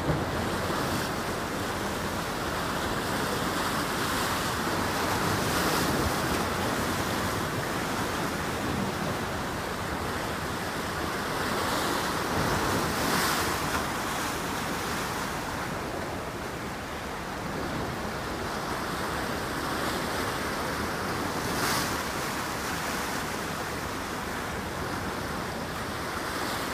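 Wind rushing over the microphone above a steady wash of waves and open water, with a couple of brief louder gusts.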